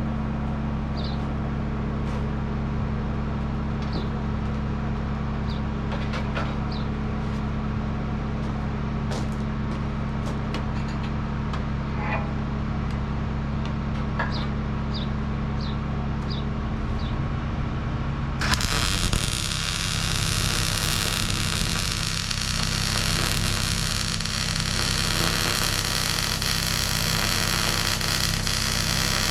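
Welding machine humming steadily, with scattered light clicks. About two-thirds of the way through, an arc is struck on steel and a steady crackling hiss of welding starts and carries on over the hum.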